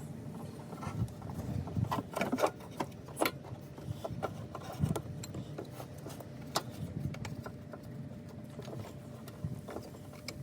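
Irregular clicks, taps and light knocks of hands and a rubber belt being worked around an engine's accessory pulleys.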